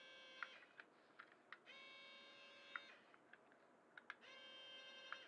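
Tiny electric motors of a micro RC hovercraft whirring in steady high-pitched bursts of about a second, three times, as the transmitter's controls are worked, with light plastic clicks in between.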